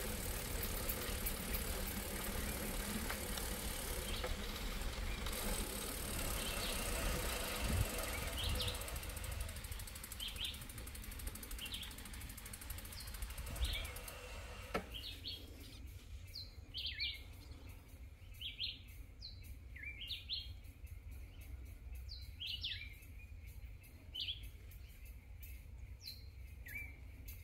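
Riding a bicycle: steady wind and rolling noise for about the first half. Then the noise drops suddenly, and a bird chirps over and over, short high calls about a second apart.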